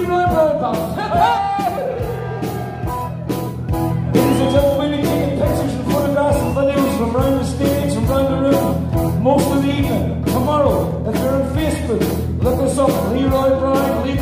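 Live band playing a song with a singer over a steady drum beat.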